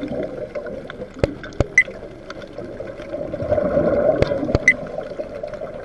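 Scuba regulator exhaust bubbles heard underwater: a watery rush that swells into a burst of exhaled bubbles about three and a half seconds in, with a few sharp clicks scattered through.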